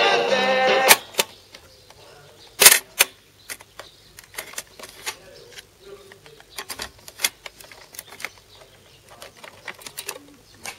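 Music playing from a BRG MK27 portable cassette recorder cuts off with a loud key click about a second in. Then come scattered clicks and plastic clatter from the recorder's piano keys, its cassette door and a cassette being handled, with a cluster of loud clicks just under three seconds in.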